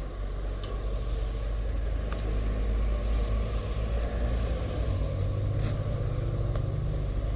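Low, steady rumble of road traffic, swelling a little midway, with a few faint clicks.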